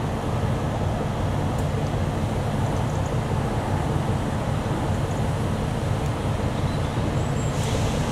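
Class 17 Clayton twin-engined diesel locomotive idling: a steady low engine drone with an even hum.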